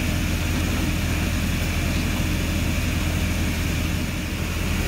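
Boat engine running steadily: an even, unchanging low drone with a hiss of noise over it.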